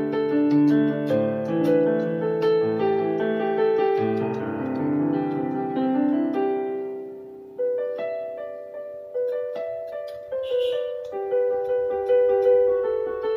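Digital keyboard with a piano sound playing a slow melody over chords; the notes die away about seven seconds in, then a new phrase begins with a firm chord.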